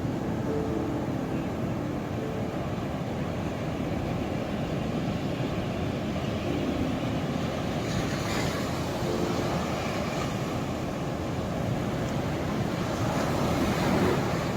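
Ocean waves washing onto the shore as a steady rushing hiss, swelling as a wave breaks about eight seconds in and again near the end.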